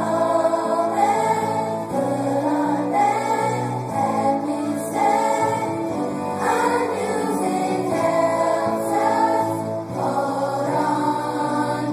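A choir singing, many voices together in sustained notes.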